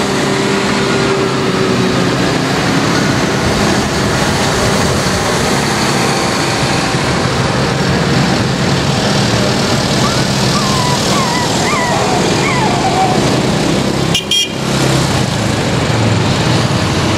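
Diesel engines of large farm tractors running steadily as a line of them drives past close by, a loud continuous engine drone with tyre noise. A few wavering high-pitched tones sound partway through, and the sound drops out briefly about fourteen seconds in.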